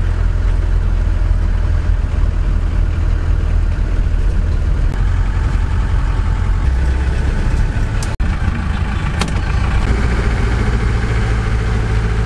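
Engine and road noise inside the cabin of a vintage American car while it drives, a steady low rumble that shifts slightly in pitch about seven seconds in.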